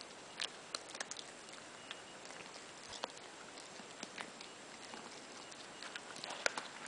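Schipperke dog gnawing and crunching a chew bone: irregular sharp clicks and cracks at an uneven pace, several coming close together near the end.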